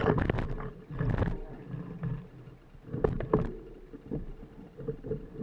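Mountain bike rattling and knocking as it is pushed up a steep, rooty dirt bank, with scattered sharp clicks and thumps: a cluster right at the start, another about a second in, and a pair around three seconds in.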